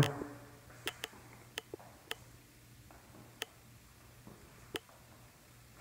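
Footsteps on a hardwood floor: a handful of sharp, irregularly spaced taps.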